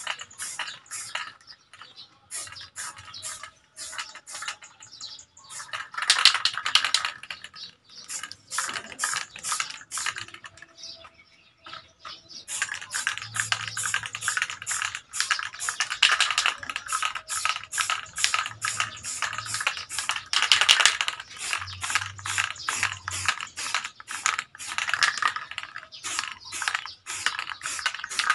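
Aerosol can of high-temperature spray paint being shaken: the mixing ball rattles inside it in quick, even clicks about four times a second, with a short break about eleven seconds in.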